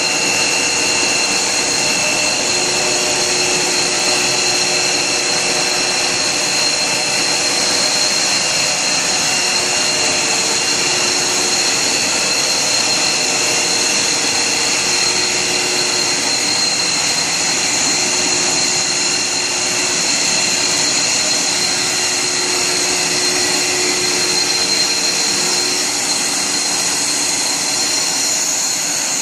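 HDPE pipe extrusion line running: the extruder and its machinery give a steady mechanical whir with a constant high-pitched whine over it.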